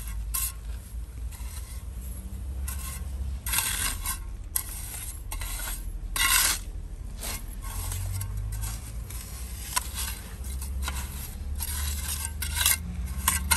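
Small hand trowel scraping and scooping gritty stone dust, packing it in beneath a steel screed rail: a run of irregular gritty scrapes, the loudest a little past the middle.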